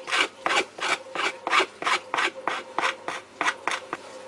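Hand file rasping back and forth along the freshly cut wooden edge of a skateboard deck, deburring it, in quick even strokes of about three a second that stop about four seconds in.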